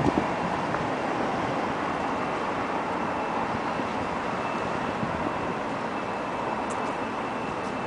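Steady running noise heard from inside a moving vehicle, with a faint steady whine over it.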